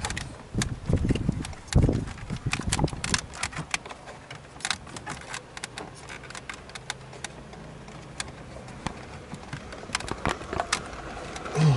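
Plastic dashboard trim being worked loose by hand: several heavier knocks and thumps in the first two seconds, then scattered light clicks and taps.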